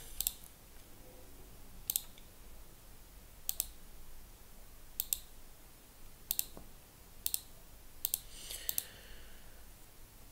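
Computer mouse button clicked about eight times, roughly a second apart, each click a quick press-and-release pair. Near the end there is a slightly longer, scratchier click.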